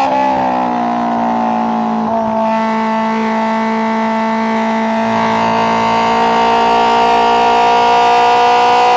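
Honda S2000's 2.0-litre four-cylinder engine and aftermarket exhaust pulling under load while driving. The pitch sags a little, steps up about two seconds in, then climbs slowly and steadily.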